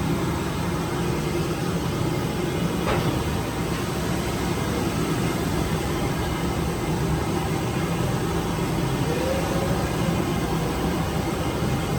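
A steady low rumble with hiss, unchanging throughout, with faint distant voices now and then.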